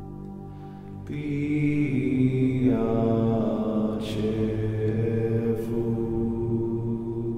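Background music of slow, droning chanted voices holding long notes, shifting pitch about a second in and again a little later.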